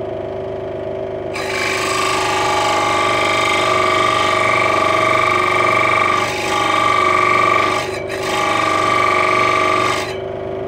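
Central Machinery 16-inch scroll saw running at full speed while its very dull blade rubs and rasps against a piece of oak without cutting through it. The rasping starts about a second and a half in, dips briefly twice, and stops near the end, leaving the motor running on its own.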